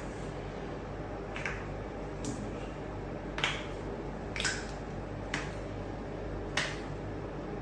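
Six sharp snapping clicks, spaced roughly a second apart, the louder ones trailing off in a short falling squeak.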